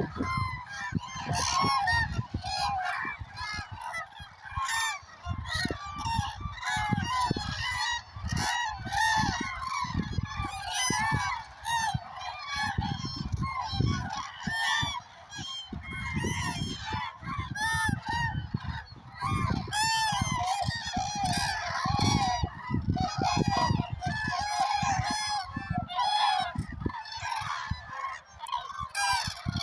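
A large flock of common cranes calling, many trumpeting calls overlapping without a pause, with a gusty low rumble underneath.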